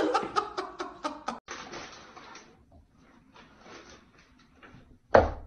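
Quick light taps of a cat's paws in toy boots on a wooden table. After a break comes a short rustle, then one sudden thump near the end.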